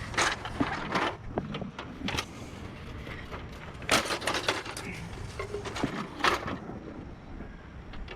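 Junk in a curbside trash pile being rummaged through: plastic and metal items clattering and knocking in several short bursts, over a steady low rumble.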